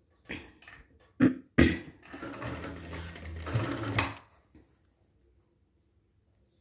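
Domestic sewing machine stitching a line of topstitching through fabric and canvas facing in a single run of about two seconds, with a steady motor hum, after two short sharp sounds.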